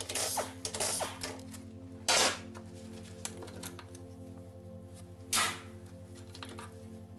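Quick metallic clicks and clinks of tools and engine parts being handled during an engine teardown, with two short louder noises about two and five seconds in.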